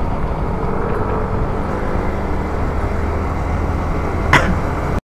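Motorcycle riding along, its engine and the road giving a steady low rumble. A short sharp sound comes near the end, and then the sound cuts off abruptly.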